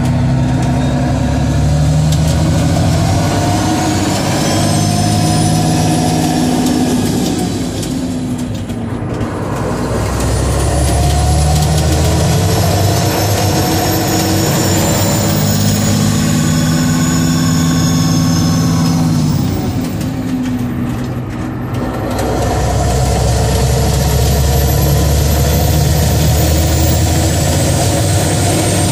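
Mack R-model truck's diesel engine pulling steadily down the road, heard from inside the cab. The drone rises and falls slowly in pitch and twice eases off briefly, about a third and about two-thirds of the way through, before pulling again.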